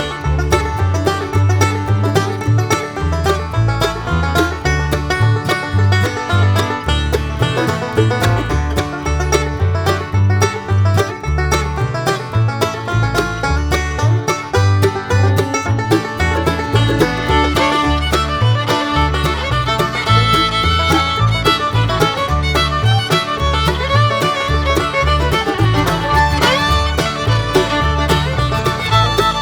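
Upbeat bluegrass-style background music with banjo and fiddle over a steady bass beat.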